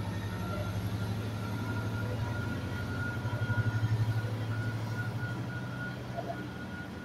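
Double-deck passenger train pulling out of the station, its locomotive and cars running with a steady low hum and a faint high whine. The hum swells around the middle and eases off toward the end as the train moves away.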